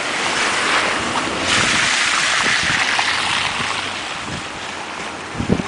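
Blizzard wind gusting across the microphone as a steady rushing noise, swelling into a stronger gust about a second and a half in and easing off again.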